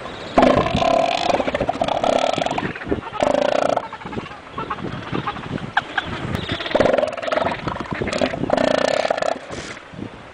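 Male southern elephant seal calling in long, burp-like belches with a rapid pulsing rattle, several bouts with short breaks between them.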